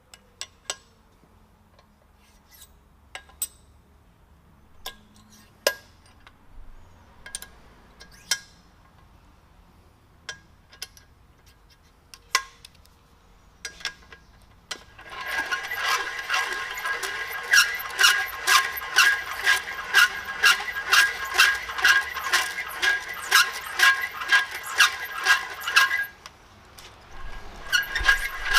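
Hand valve-seat work on a Cummins 12-valve diesel cylinder head. First come scattered metal clinks. Then, about halfway through, a fast rhythmic metal-on-metal scraping and ringing clatter starts; it stops briefly near the end and picks up again.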